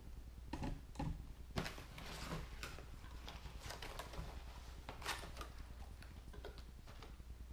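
Cardboard packaging being opened and handled by hand: irregular clicks, taps and rustles as a box flap is lifted and a foam tray of propellers and parts is handled.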